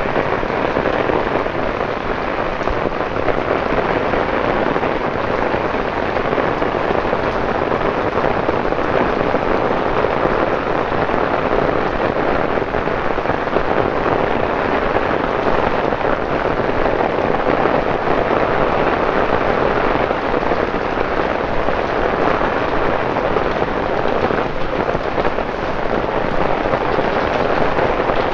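Torrential rain falling on wet paving: a loud, steady, dense hiss of drops with no let-up.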